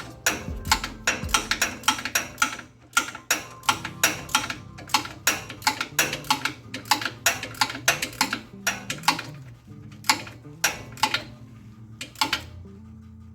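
Ratchet wrench clicking in short strokes, about three clicks a second and fewer near the end, tightening a torque converter bolt with blue Loctite down to the flywheel. Background music plays underneath.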